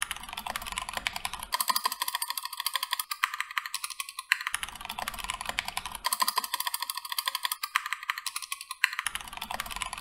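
Fast typing on an unmodded Keychron K2 mechanical keyboard in its stock plastic case, a rapid stream of key clacks. The sound switches about every second and a half between a fuller, deeper clack and a thin, high clatter, and the cycle repeats.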